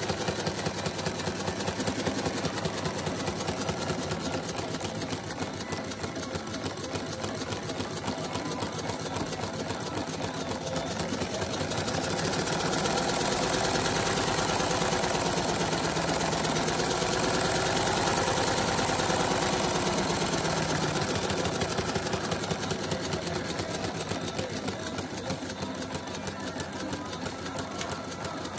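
LEGO pneumatic engine running, its valve and cylinder making a rapid, even clatter. A little past a third of the way in it gets louder and a whine rises and falls in pitch as it speeds up and slows again, then it settles back.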